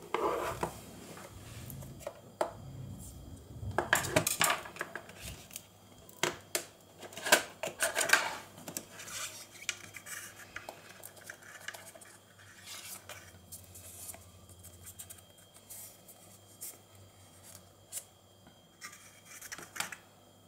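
Hands handling a cardboard smartwatch box and its inner tray: scattered scrapes, taps and rustles of cardboard, busiest in the first eight seconds and sparser after.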